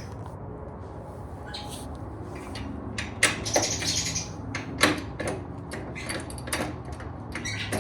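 A few sharp clicks and knocks of metal hardware being handled while a bolt is fitted to a motorcycle saddlebag guard, over a steady low hum.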